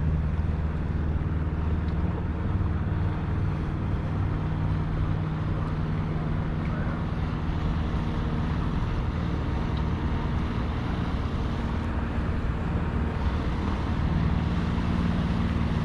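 Small fishing boat's engine running steadily as it passes, a low even drone under a hiss of wind and water.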